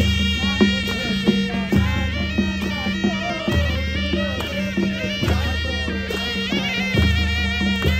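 Live wedding-procession band of brass horns and a two-headed drum: the horns play a winding, wavering melody over a steady drum beat and a held low note.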